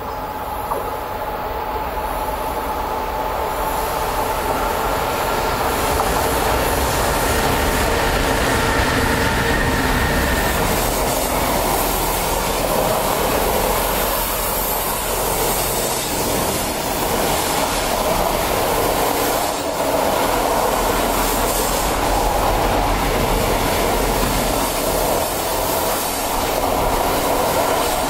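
Freight train of road trailers on pocket wagons approaching and rolling past on a curve of the electrified line, growing louder over the first several seconds and then holding steady as the wagons go by. High steady tones of wheels squealing in the curve sound through roughly the first ten seconds.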